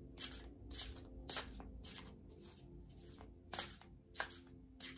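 A deck of tarot cards being shuffled by hand: a string of soft, papery swishes, with a pause in the middle.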